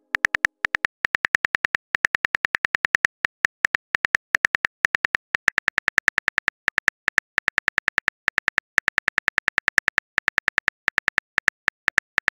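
Smartphone keyboard key-click sounds, a rapid run of short clicks at about seven a second with a few brief pauses, as a text message is typed out letter by letter.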